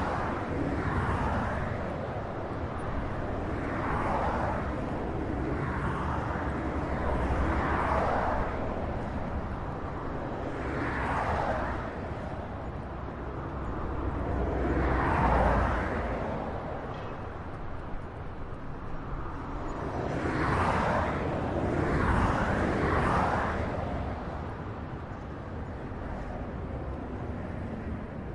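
Highway traffic: a steady rumble of tyres and engines, with a vehicle swelling past every few seconds, about eight pass-bys.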